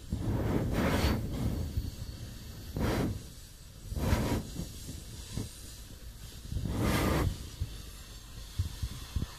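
Freight train's tank cars rolling past a grade crossing: a steady low rumble with a few rushes of noise, about a second long, as the cars and their wheel sets go by.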